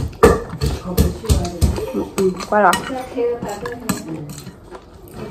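Utensils knocking and clinking against dishes in a rapid, uneven series of strikes, thinning out and growing quieter after about three seconds.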